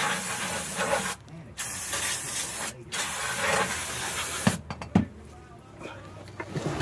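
Aerosol can of brake cleaner spraying in three long hissing bursts with short breaks, to wash oily grime off the underside of the engine. Two sharp knocks follow about five seconds in.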